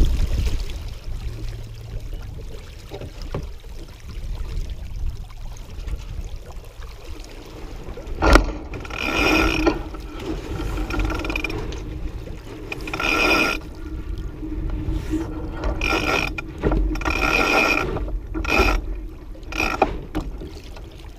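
Sailboat sheet winch ratcheting in a run of short buzzing bursts as a sheet is hauled in by hand, starting about eight seconds in. Before that, wind and water noise against the hull.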